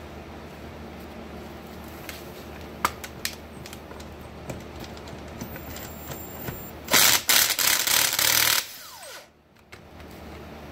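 Impact wrench hammering for about a second and a half on a fastener of a John Deere piston pump being taken apart, then its motor winding down with a falling whine. A few sharp clicks of metal tools being handled come before it.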